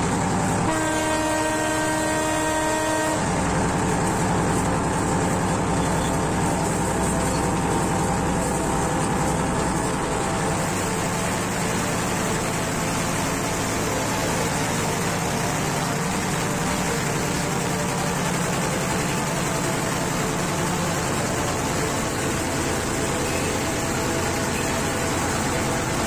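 Train horn sounding one steady blast of about two and a half seconds near the start, as the train approaches a tunnel. After it comes the steady rumble of the diesel train running on through the tunnel.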